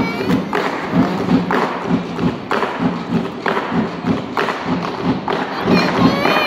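Show music with a heavy, steady percussive beat of about two thumps a second, with a few sliding whistle-like tones near the end.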